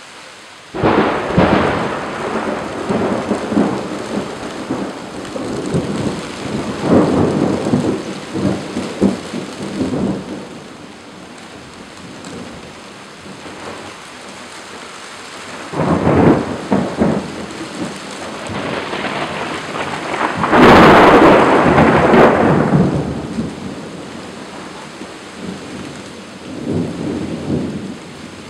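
Thunder rolling over steady rain. A peal breaks suddenly about a second in and rumbles on for several seconds. Another follows past the middle, then the loudest, sharpest crack comes a few seconds later and rumbles away, with a fainter rumble near the end.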